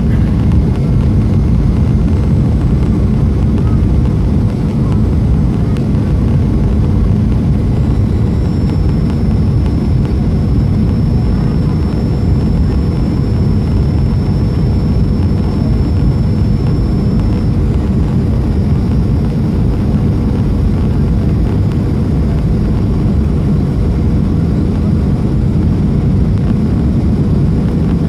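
Steady, loud, low-pitched engine and airflow noise inside the cabin of a Boeing 737-300 with CFM56 turbofans on final approach. A faint, high, thin whine runs for several seconds in the middle.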